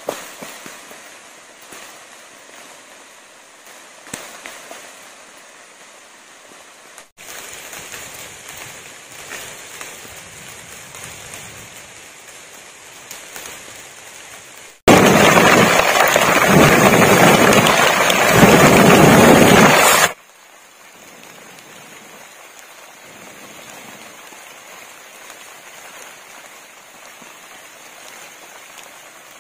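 Heavy rain pouring onto rice plants: a loud, even hiss lasting about five seconds that starts and stops abruptly about halfway through. Around it are quieter stretches of outdoor noise with light crackles.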